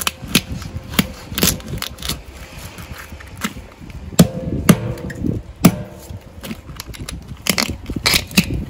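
Knife blade clicking and cracking against spiny lobster shells as the lobsters are cleaned. The clicks and crunches come irregularly, a few a second, loudest around the middle.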